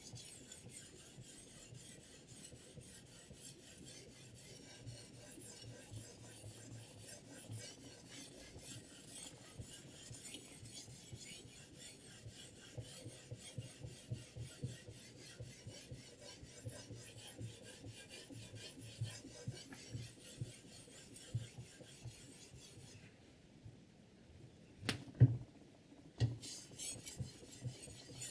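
A sharpening stone on a KLODCHIK guided sharpening system rubbed back and forth along the edge of a 10Cr15CoMoV steel chef's knife in quick, steady strokes. Near the end the strokes pause for about three seconds, with one sharp click in the pause, then start again.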